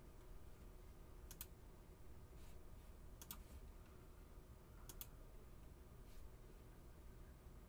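Faint computer mouse clicks, each a quick double tick of press and release, three times about two seconds apart, over a low steady room hum.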